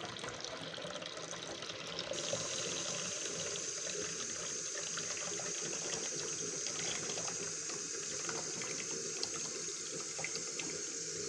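Kitchen faucet running a steady stream of water into a plastic watering can held under it, filling it. The rush turns a little louder and brighter about two seconds in.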